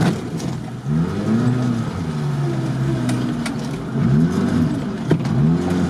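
Off-road car's engine revving up and down again and again as it is driven at speed through water and mud, heard from inside the cabin, with a few sharp knocks.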